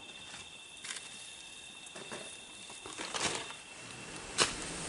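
Steady high insect drone, a pulsing chirr on two pitches, that stops about three and a half seconds in. Scattered crackles and rustles are heard over it, with one sharp snap near the end that is the loudest sound.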